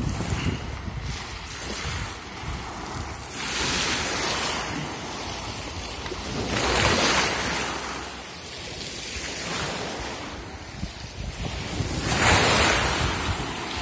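Small waves washing up a pebble beach and drawing back, a steady wash with three louder surges of hissing water over the stones, the last near the end.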